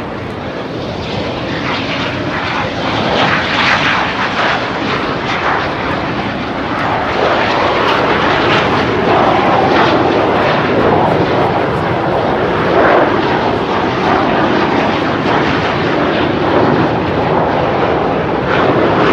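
Jet engine noise from the Red Arrows' BAE Hawk T1 jets flying past, a loud steady rush that grows a little louder over the first several seconds.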